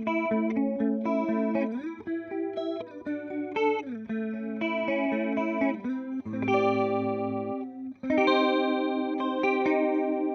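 Electric guitar from a Fender Jazzmaster with humbuckers, played through a Boss CE-2 chorus pedal: picked notes and chords with a few slides, then a chord struck about eight seconds in and left ringing with a slow wavering.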